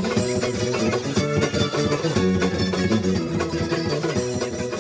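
Live band playing with electric guitar, bass guitar and drums, keeping a steady beat.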